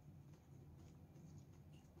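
Near silence: room tone with a few faint, short soft clicks.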